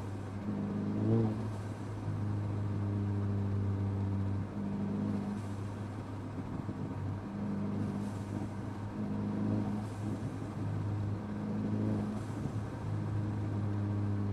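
Mercedes-Benz CLA250's turbocharged four-cylinder engine pulling under throttle as the car drives, a steady drone that steps up and down in pitch. Several times the throttle is lifted and the aftermarket Forge blow-off valve vents boost with a short whoosh of turbo flutter. There is a brief louder swell about a second in.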